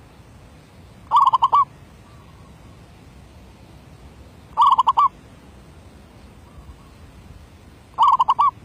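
Zebra dove (merbok) cooing: three short phrases a few seconds apart, each a quick run of four or five staccato notes.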